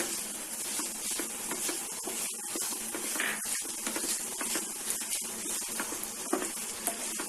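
Chicken and crumbled paneer sizzling in a pan as they are stirred, with a spoon scraping and clicking against the pan now and then.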